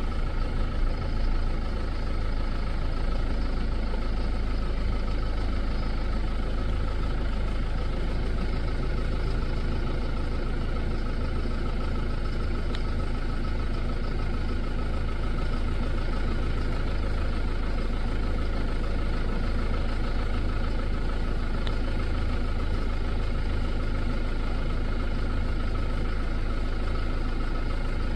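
Vehicle engine idling steadily, a constant low rumble.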